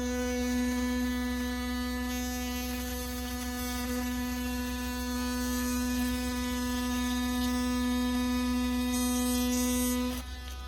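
Cordless oscillating multi-tool running with a new blade, cutting through asphalt shingles: a steady buzz that stops near the end.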